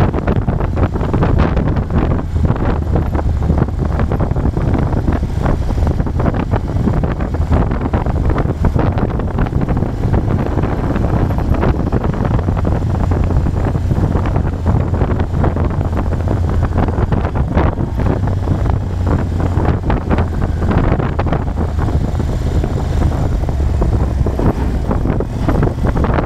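Moto Guzzi Bellagio's air-cooled V-twin engine running steadily under way on the move, heard with heavy wind noise buffeting the microphone.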